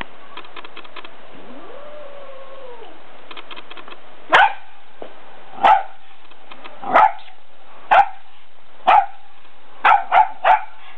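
Small dog barking at a cat in short, sharp single barks. They start about four seconds in and come roughly once a second, with the last three in quick succession.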